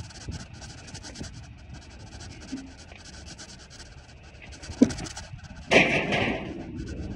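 Scrap metal being handled in a pickup bed: a sharp knock about five seconds in, then a loud scraping clatter, under a second long, near the end.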